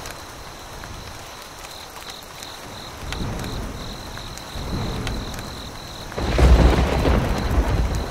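Thunderstorm: steady rain with rolls of thunder, a small rumble about three seconds in, another near five seconds, and the loudest, longest roll from about six seconds to the end.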